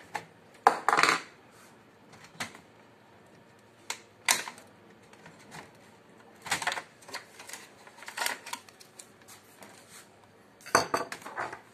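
Plastic clicks, knocks and clatter from the casing and scanner lid of an HP LaserJet multifunction printer being taken apart by hand and with a screwdriver. Scattered single knocks with pauses between, and a denser cluster of clatter near the start and again near the end.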